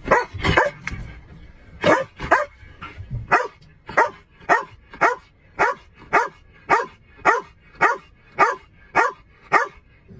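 Shepherd-type police K9 dog in the caged back of a patrol car, barking over and over, irregularly at first and then in a steady run of about two barks a second. A low rumble underneath stops about three seconds in.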